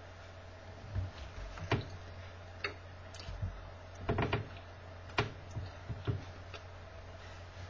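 A steady low hum with a handful of soft, irregular taps and clicks over it, including a quick run of them about four seconds in.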